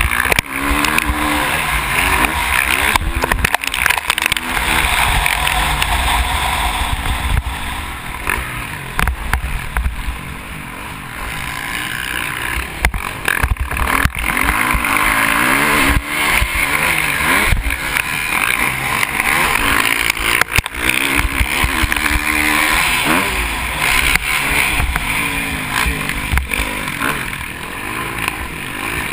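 KTM SX350F motocross bike's 350 cc single-cylinder four-stroke engine revving up and down again and again while racing over the track, with scattered sharp knocks from the bumps.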